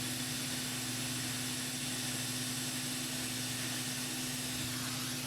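A small electric appliance running steadily: an even hiss with a constant low hum.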